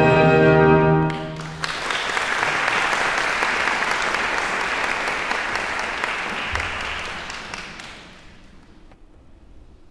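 An orchestra's final held chord cuts off about a second in, and the audience breaks into applause that fades away near the end.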